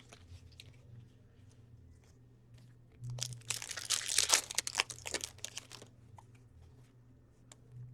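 Foil wrapper of a hockey card pack being torn open and crinkled, starting about three seconds in and lasting a couple of seconds, with a few faint clicks before it.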